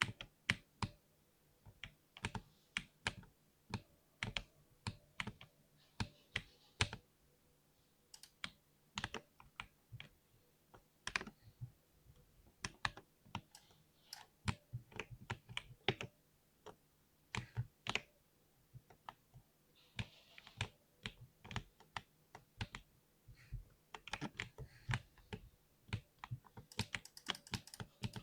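Typing on a mechanical keyboard with Cherry MX Silver linear switches: irregular key strokes, a few a second, with short pauses between runs.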